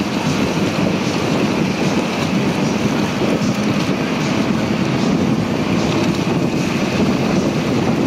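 A small river ferry under way: wind buffeting the microphone over the steady drone of the boat's motor and the wash of choppy water.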